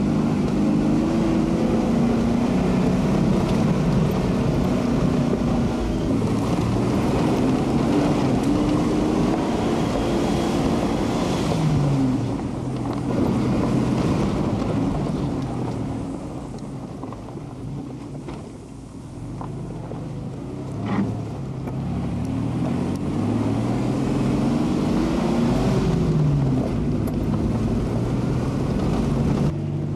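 Four-wheel-drive vehicle's engine working on a steep dirt track, heard from inside the cabin, its pitch rising and falling with the throttle. It drops quieter for a few seconds around the middle, with a single knock soon after.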